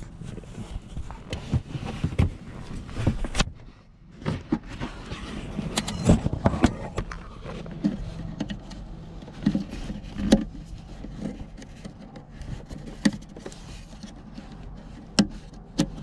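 Plastic clicks and handling scrapes as hands work the latches and locking clips of the yellow wiring connectors on an airbag control module, unplugging them; sharp clicks come irregularly, a few of them louder.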